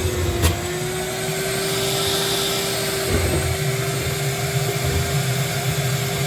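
Wet/dry shop vacuum running steadily, used without its filter to suck water from a drainage basin: a constant motor whine over a rush of air, with a single sharp click about half a second in.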